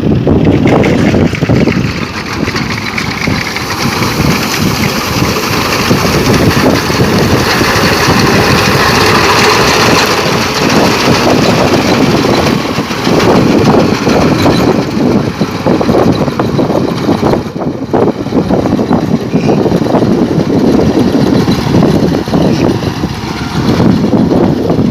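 Wheat harvesting machine running loudly: a steady engine drone under dense mechanical clatter.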